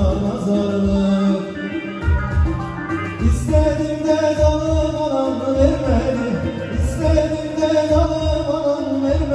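Live Turkish folk dance tune (kaşık havası) played on a bağlama and a Korg Pa900 arranger keyboard, the melody running over the keyboard's steady drum beat.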